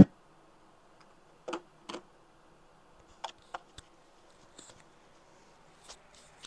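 Quiet small room with a handful of faint, scattered clicks and taps: small handling noises of a person fiddling with a handheld device.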